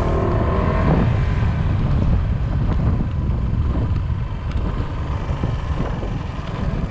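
Motor scooter engine running as the rider slows, its pitch dropping sharply about a second in, then a low-speed rumble with wind on the microphone.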